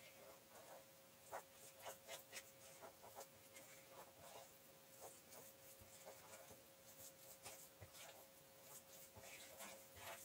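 Faint, irregular scraping and light clicks of a spatula stirring a thick, crumbly coconut cake batter in a bowl.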